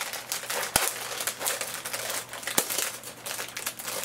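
Crinkling plastic wrapper of an Oreo cookie package being pulled and torn open by hand, with a couple of sharp snaps along the way.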